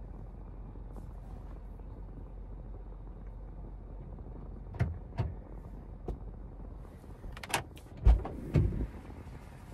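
Steady low hum of a car, heard from inside, then a few sharp clicks and, near the end, two heavy thumps.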